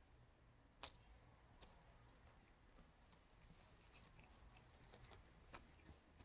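Near silence: room tone with a few faint scattered ticks and taps, and one sharper click about a second in.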